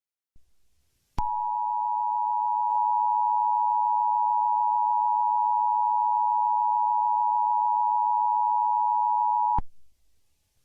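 Emergency Alert System attention signal: two steady tones just under 1 kHz sounded together (the 853 and 960 Hz dual tone), starting sharply about a second in and cutting off abruptly after about eight seconds.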